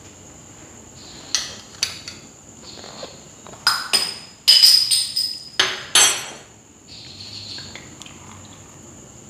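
A bottle of Guinness being opened with a bottle opener: a couple of sharp clicks, then a burst of metallic clicks and ringing clinks as the crown cap is pried off. Near the end, beer being poured into a plastic blender cup, faintly.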